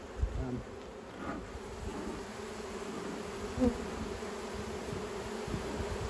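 Honey bees buzzing steadily over the open frames of a hive, a colony that is excited and a little more aggressive than usual. A short soft bump about three and a half seconds in.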